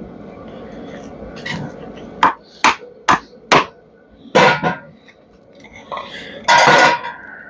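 A hammer tapping on scrap metal: four quick sharp strikes about half a second apart, then a heavier knock, and near the end a longer metallic clatter.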